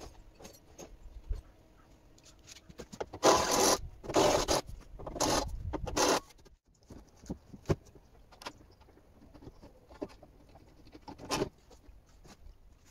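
Four short, loud rasping scrapes a little after three seconds in, then scattered light clicks and knocks as parts are handled and an intercooler is set against the radiator.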